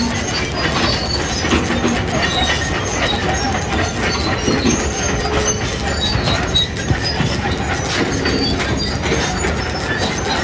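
Heavy construction machinery working with a steady low rumble, scattered short high metal squeals and frequent clatter.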